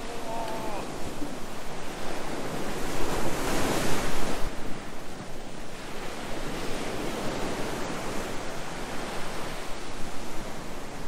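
Sea surf breaking on a beach: a steady wash of waves, with one wave swelling louder about three to four seconds in. Wind on the microphone.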